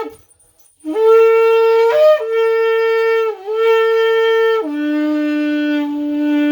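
Kudu horn blown like a shofar: a previous blast cuts off at the start, then after a short pause one long blast begins. It holds a steady tone with a brief upward break about two seconds in and a small dip around three and a half seconds, drops to a lower note for the last two seconds, and ends with a short upward flick.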